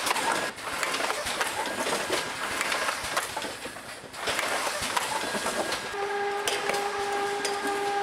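Bag-in-box wine carton packing machinery running: a dense mechanical rattle and clatter from the conveyors and carton-handling mechanism. Near the end a steady whine joins in.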